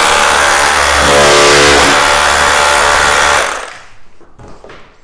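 Bosch GBH18V-26 cordless SDS Plus rotary hammer in hammer-only mode, driving a scutch chisel into brick to cut out a back-box recess. It runs steadily, then stops about three and a half seconds in, followed by a few light knocks.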